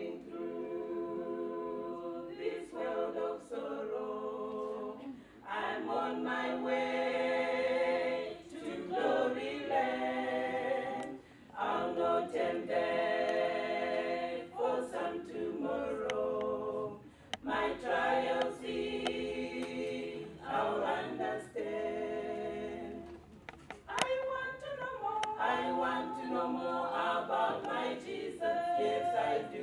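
A small mixed vocal group, women's voices leading with one man, singing a gospel hymn a cappella in harmony, in phrases broken by short breaths every few seconds.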